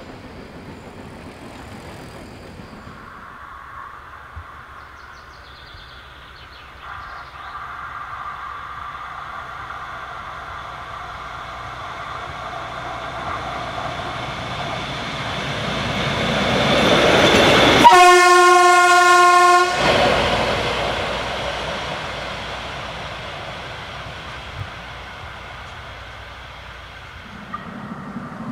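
Narrow-gauge diesel railcar approaching, its running noise growing steadily louder, then one loud horn blast of about two seconds as it passes. It then runs away, fading into the distance.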